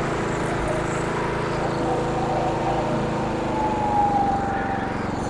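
Simplicity rear-engine riding lawnmower's small engine running steadily with the cutting blades engaged. A thin high whine sits above it, growing louder and sliding slightly down in pitch about three to four seconds in.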